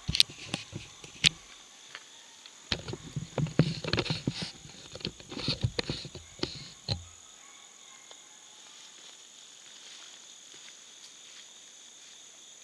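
Steady insect chorus of two continuous high tones, with a run of close knocks and rustles over the first seven seconds.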